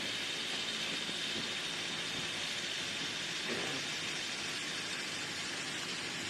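Steady road and tyre noise of a car driving on a wet street, heard from inside the cabin: an even hiss with no clear engine note.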